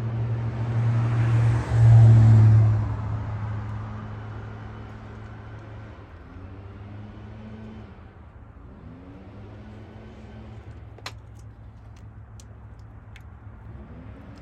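Motor vehicle noise over a steady low hum: the sound swells loudly and fades away within the first three seconds, like a vehicle passing close by. A few sharp clicks follow in the second half, typical of tools or bolts being handled.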